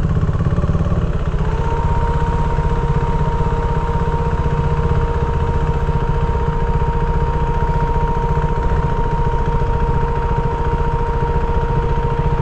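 KTM RC390 single-cylinder motorcycle engine running at a steady speed, with a heavy low rumble. From about a second and a half in, a steady whine holds at one pitch.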